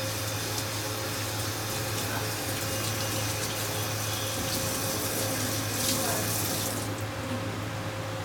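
Water from a handheld hose sprayer spraying onto a wet dog and splashing on a stainless steel grooming tub as the dog is rinsed. The water shuts off about seven seconds in, leaving a steady low hum.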